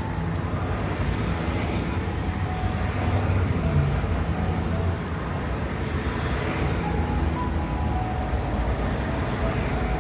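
Steady highway traffic: a continuous wash of tyre and engine noise from cars and trucks passing. Single vehicles swell past about four seconds in and again after six seconds.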